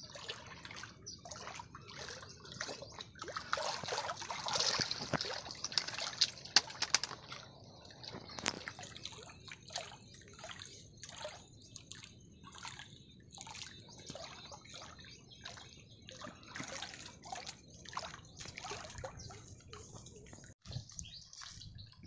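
Water sloshing with irregular small splashes and drips, busiest a few seconds in.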